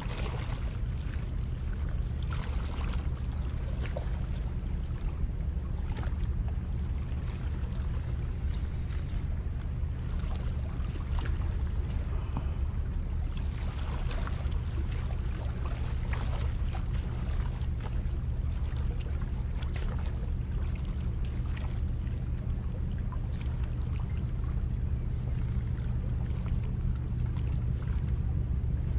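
Steady low rumble of wind and sea water at the shoreline, with scattered faint ticks and small splashes over it.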